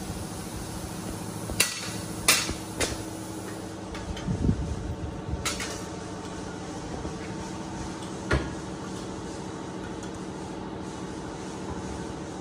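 Metal struck about five times in sharp clanks, spaced irregularly, with a few duller thuds between them, over a steady machine hum.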